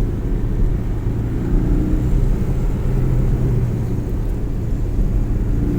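Porsche 718 driving at a steady engine speed: a steady low engine drone mixed with road and tyre noise.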